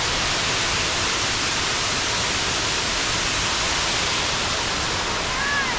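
Waterfall: a steady, unbroken rush of falling water, a dense even hiss.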